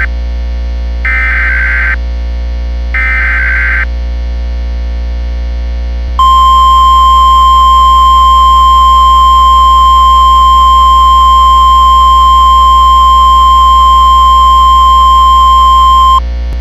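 Emergency Alert System broadcast on NOAA Weather Radio. First come the harsh, buzzing SAME digital header data bursts: one ends right at the start and two more follow, each about a second long. After a short pause, the steady 1050 Hz warning alarm tone sounds for about ten seconds; it signals that a warning follows and trips weather radio receivers. A low steady hum runs under it all.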